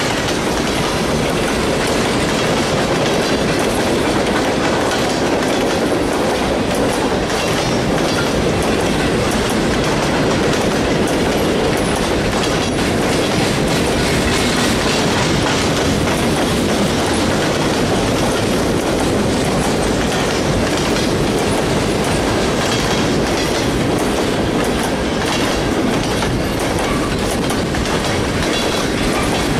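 Mixed freight train's tank cars, centerbeam flatcars and boxcars rolling past close by. The steel wheels run on the rails with a steady rumble and clatter that holds an even level throughout.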